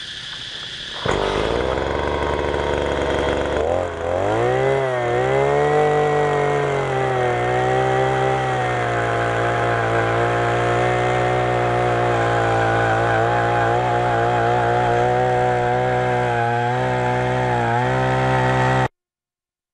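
Oshima 2P earth auger's 49.9 cc single-cylinder two-stroke engine revving up about a second in, its pitch rising again a few seconds later, then running steadily at high revs with a slight waver as the auger bores into hard ground. The sound cuts off suddenly near the end.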